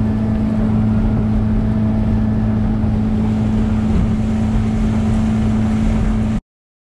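Small motorboat running at speed: a steady engine hum over rushing water and wind on the microphone, cutting off abruptly near the end.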